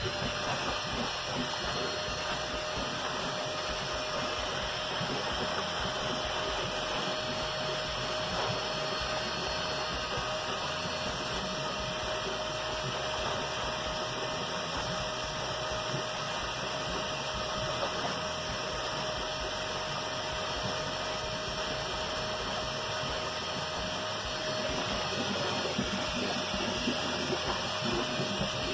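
Homemade air blower built from a vacuum cleaner's brushed motor spins up and then runs steadily with a constant whine over a rushing hiss. Its air is forced down a pipe into a water tank and churns the surface hard.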